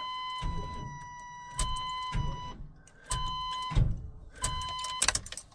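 Chevrolet C1500 pickup's dashboard warning chime sounding a steady tone as the ignition key is cycled on and off. The tone breaks off and comes back three times, with brief low rumbles in between.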